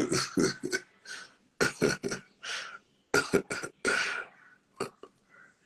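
Quick bursts of a person's breathy voice, not words, in three clusters over about four seconds, with one last short burst near the end.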